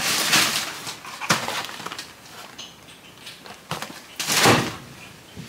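Groceries being handled and put away: packaging rustling with a few knocks, the loudest rustle just past four seconds in.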